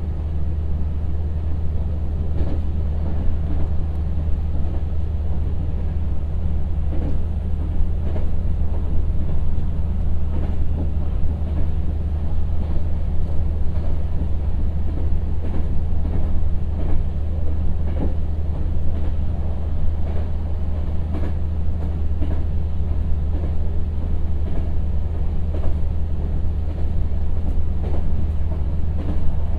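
A Kyoto Tango Railway KTR700 diesel railcar running, heard from inside the cabin. It makes a steady low drone with wheel-and-rail rumble and scattered clicks.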